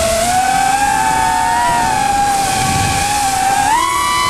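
FPV quadcopter's motors and propellers whining, recorded on board, the pitch wandering with the throttle and rising sharply about three and a half seconds in.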